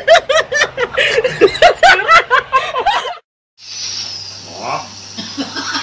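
A woman laughing hard: a rapid run of high-pitched "ha-ha" bursts, about five or six a second, that cuts off suddenly about three seconds in. After a brief silence comes a steady low hum with faint voices.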